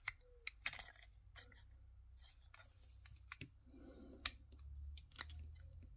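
Faint, scattered clicks and light handling of a small diecast model tank turned in the fingers, its small parts clicking and tapping.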